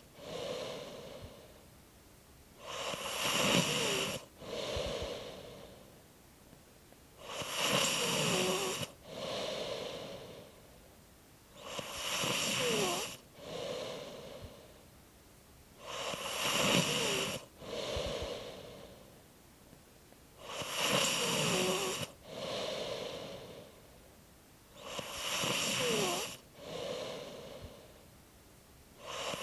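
A person snoring in slow, even breaths about every four and a half seconds. Each breath has a louder part with a short, quiet squeak that falls in pitch, then a softer second part.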